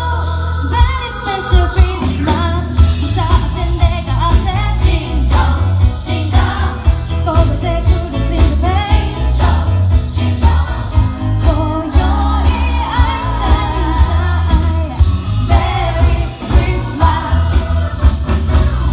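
Christmas pop song: a voice singing over a steady beat and strong bass, with jingle bells.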